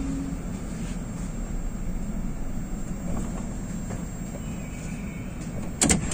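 Steady low rumble of a metro train and the station around it. Near the end comes a sharp double knock, the loudest sound, after which the rumble grows louder.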